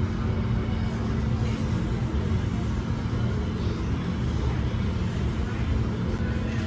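Steady restaurant room noise: an even low rumble with a constant low hum running through it.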